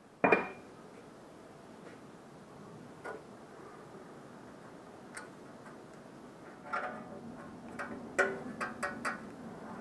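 Small metal clicks and clinks of a steel hex key and hand tools against a drill press's cast-iron head: one sharp ringing clink about a third of a second in, a few single ticks, then a run of quick clicks near the end as the hex key works a set screw in the spindle bearing housing.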